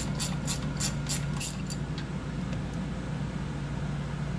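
Ratcheting wrench clicking in quick strokes, about three or four a second, as it backs out the oil pan drain plug on an LS engine. The clicking stops after about two seconds, leaving a steady hiss as the oil drains out of the pan.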